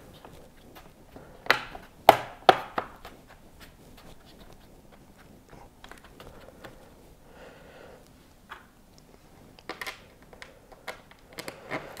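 Plastic bottom cover of an Asus ROG Strix SCAR II gaming laptop snapping into its clips as hands press it down around the edges. There are a few sharp clicks between about one and a half and three seconds in, then faint rubbing, and more small clicks near the end.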